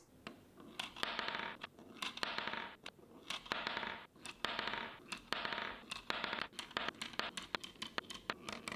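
Steel marbles set one at a time into a stack of 3D-printed plastic ramps. Each rolls briefly down its ramp and clicks against the marbles already sitting there, several times over, with sharp clicks in between as they are handled.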